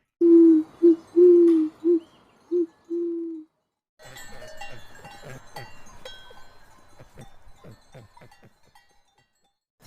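Owl hooting: a series of six steady, low hoots, some long and some short. After a short pause comes a quieter rustling, clicking sound with a run of quick knocks that speed up.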